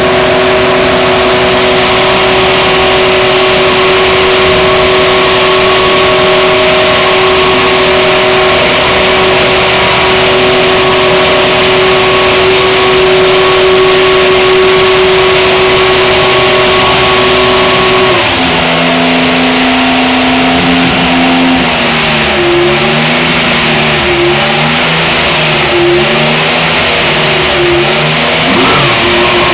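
Mercedes 1.6-litre turbocharged V6 hybrid Formula 1 power unit running during its warm-up, held at a steady fast idle. About two-thirds of the way through the pitch drops, then the engine rises and falls in light revs about every second and a half.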